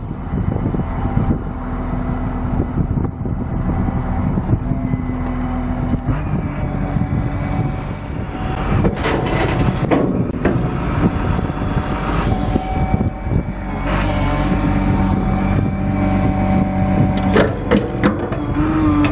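Cat 930H wheel loader's Cat C6.6 diesel engine running steadily, a low hum with steady tones that shift every few seconds. A few sharp clicks about nine seconds in and again near the end.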